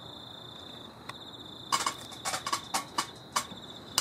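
A cricket chirping in a steady, fast, high pulsed trill. From a bit under two seconds in, a run of sharp, irregular clicks or taps comes in, louder than the cricket.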